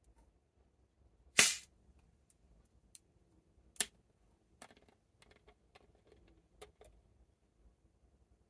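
Screw cap of a PET bottle of carbonated soda water being twisted open: a short, loud hiss of escaping gas about one and a half seconds in as the seal breaks, then a sharp click and a scatter of small plastic clicks and ticks as the cap is unscrewed the rest of the way.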